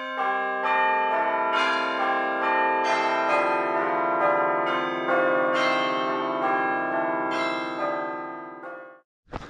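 Bells ringing a run of overlapping struck notes, each note ringing on under the next; the ringing fades out shortly before the end.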